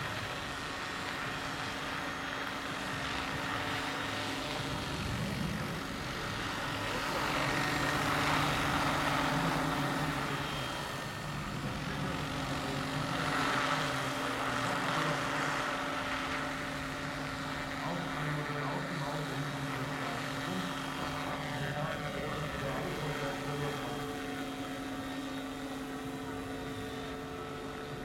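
Large-scale Vario AS350 Écureuil electric RC helicopter in flight: a steady rotor whirr with a steady motor whine underneath, swelling louder twice, about a third of the way in and again around the middle.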